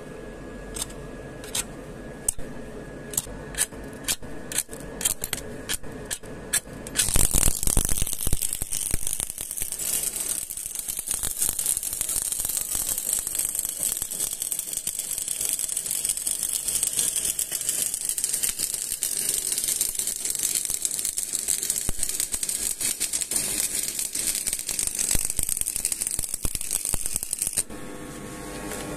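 A dozen or so sharp, irregular taps, then a stick-welding arc on steel plates. The arc crackles and hisses steadily for about twenty seconds as a bead is laid, and cuts off abruptly near the end.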